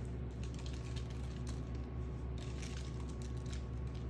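Faint scattered ticks and light rustling of caraway seeds being pinched from a plastic container and sprinkled over bread dough, over a steady low hum.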